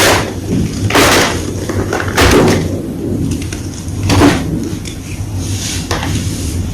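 Blocks of gym chalk being crunched: five dry crunches a second or two apart, the last one weaker.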